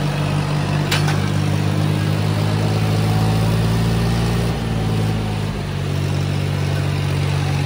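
Tractor diesel engines, a 55 hp John Deere and its Kubota rival, running hard under heavy load in a tug-of-war pull, strong enough to lift the John Deere's front wheels. The engine note is steady, with a sharp click about a second in and a brief dip in pitch past the middle as the engine lugs.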